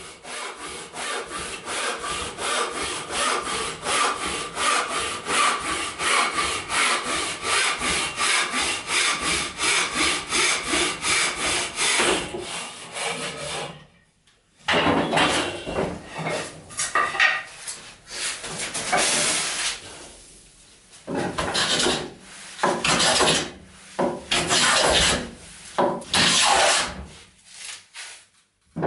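A wooden frame saw ripping down a board held upright in a bench vise, in fast, even back-and-forth strokes that stop about 14 seconds in. After a short pause come irregular, longer strokes of a hand tool on wood.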